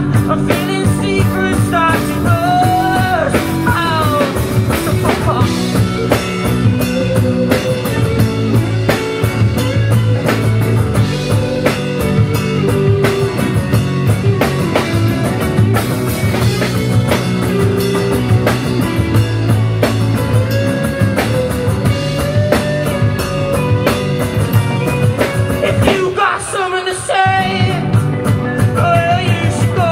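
Live rock band playing loud amplified music: drum kit, electric guitars and bass, with bending melodic lines on top. About 26 seconds in there is a brief break of roughly a second where the low end drops out.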